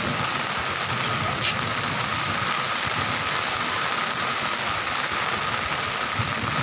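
Heavy rain falling steadily, an even hiss, with a low rumble underneath.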